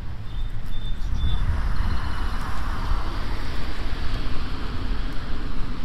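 Wind rumbling on the microphone, with a passing vehicle's road noise swelling and fading over a few seconds.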